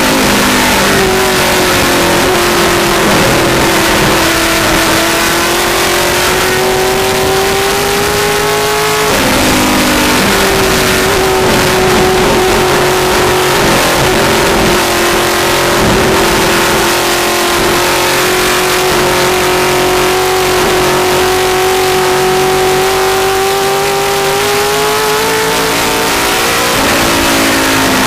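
Vintage Mustang race car's V8 engine, heard from the cockpit, running hard under race load. Its pitch climbs, breaks sharply about nine seconds in, holds nearly level for a long pull, then rises again and falls away near the end as the car slows.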